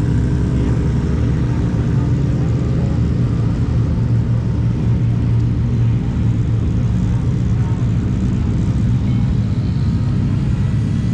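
A motor vehicle's engine running steadily, a loud, even low drone with no changes in pitch.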